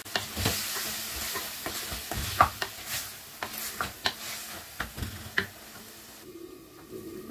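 Minced mutton and potato cubes sizzling as they fry in a clay pot, stirred with a wooden spoon that scrapes and knocks against the pot. Near the end the sizzle drops away as the pot is covered with its clay lid.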